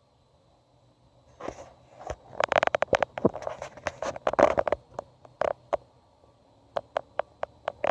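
Grey squirrel making a rapid run of sharp clicking sounds, then a few single clicks spaced about a quarter-second apart near the end.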